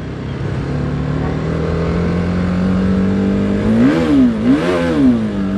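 TVS Apache RR310's single-cylinder engine through its stock, unmodified exhaust, being revved hard under acceleration: the pitch climbs over the first few seconds, then holds steady at high revs. A voice calls out briefly over it about four seconds in.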